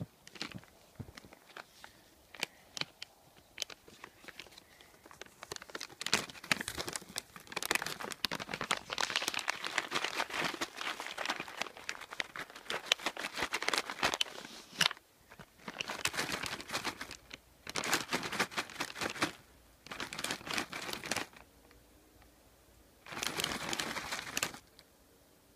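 Snow crunching and crinkling: scattered clicks at first, then dense crackly bursts of one to two seconds each, with short pauses between them.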